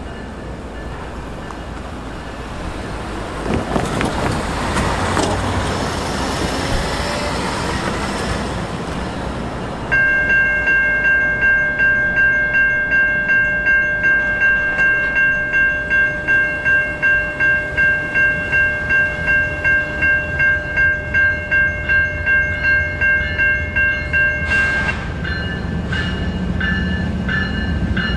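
CSX freight locomotive approaching on street-running track. It sounds a long steady multi-note horn blast of about fifteen seconds that pulses slightly and stops abruptly. Then a bell rings in quick repeated strokes, about three a second, over a low rumble.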